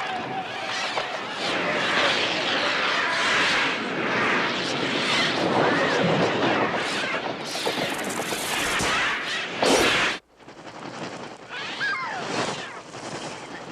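A dense chatter of many birds calling at once, a flock's noisy chorus. About ten seconds in it cuts off abruptly after a loud burst, and the calling carries on more faintly.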